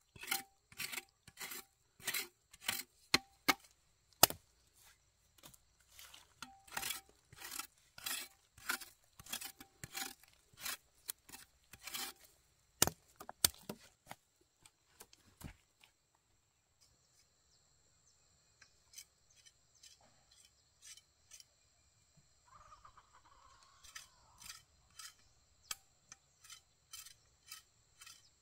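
Repeated sharp chopping strikes, about two a second, some with a brief metallic ring. They thin out after about 14 seconds, leaving scattered strikes over a steady high drone of insects.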